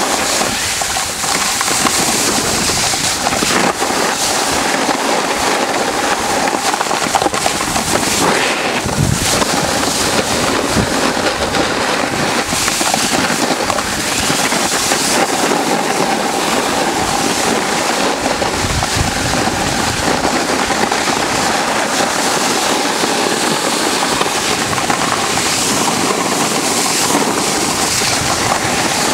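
Continuous scraping hiss of snow under a rider sliding down a groomed slope, mixed with wind noise on the microphone.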